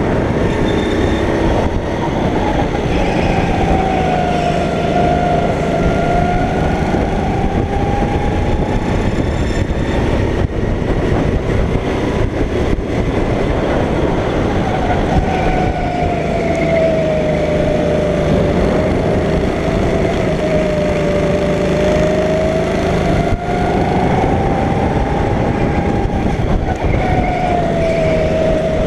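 Go-kart engine running at speed, its pitch rising and falling repeatedly as it accelerates and slows, over a constant loud rushing noise.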